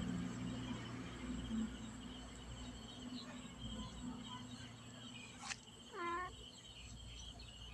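A kitten meows once, briefly, about six seconds in. Insects chirr steadily with a low hum underneath, and a sharp click comes just before the meow.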